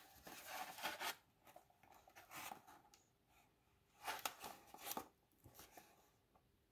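Cardboard display box with a clear plastic window being turned over in the hands: card and plastic scrape and crinkle in a few short bursts, about a second in, near the middle, and again around four to five seconds in.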